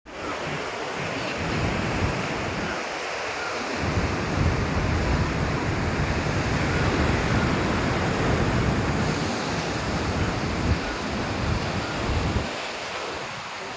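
Sea surf washing in steadily, with wind buffeting the microphone as a low rumble for most of the time, easing briefly about three seconds in and again near the end.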